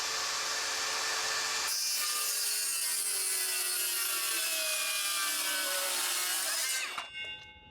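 Brushless 18-volt cordless circular saw cutting through a wooden board: a steady motor whine mixed with the blade's rasp through the wood, its pitch drifting slowly down under load. Near the end the cut finishes and the blade spins down with a short fading ring.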